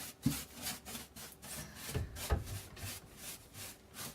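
Rapid back-and-forth scraping and rubbing against the wooden frame of a door's glass opening, about four strokes a second, as the old glass bits and debris are cleaned out, with a couple of dull knocks on the wood.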